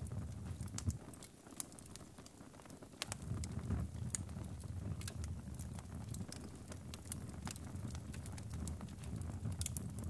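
Wood fire burning in a fireplace: scattered sharp crackles and pops over a low, steady rumble of flame. The rumble drops back for a moment a second or so in, then picks up again.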